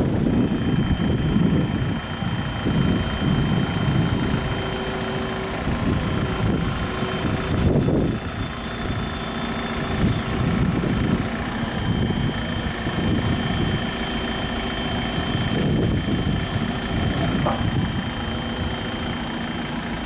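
JCB 3CX 4x4 backhoe loader's diesel engine running steadily while the backhoe arm is operated.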